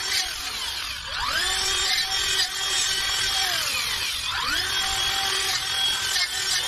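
Battery-powered chainsaw cutting brush, its electric motor running with a steady high whine. Twice the trigger is let off and the pitch drops away before the motor speeds back up, about a second in and again around four seconds.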